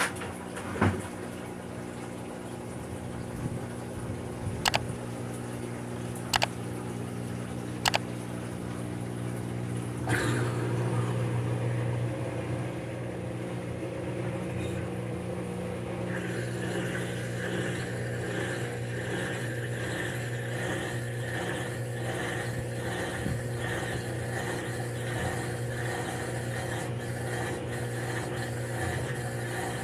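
Maytag top-load washer's drain pump running with a steady hum as it pumps the water out, with a few sharp clicks in the first third. About halfway through, a rhythmic pulsing joins the hum.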